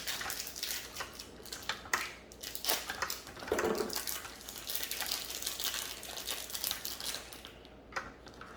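Small plastic toy pieces and packaging being handled and unwrapped: a rapid run of clicks, rattles and crinkles.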